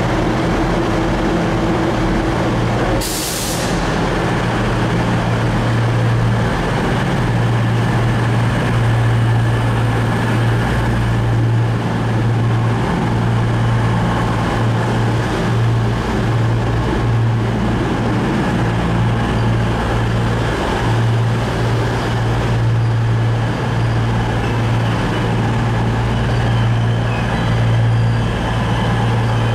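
CrossCountry Voyager diesel multiple unit's underfloor diesel engines running with a steady low hum as the train draws in and stands at the platform. About three seconds in there is a short, sharp hiss of air from the brakes.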